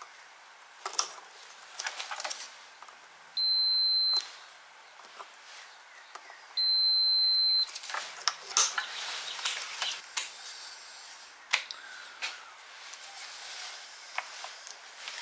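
Two electronic beeps, each a steady high tone lasting just under a second, about three seconds apart, amid light clicks and clatter of handling tools and parts.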